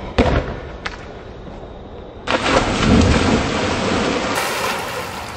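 A ball bounces once, sharply, on the wet patio stones. About two seconds in, a person plunges into a swimming pool with a big splash, and the water churns and spatters for a couple of seconds.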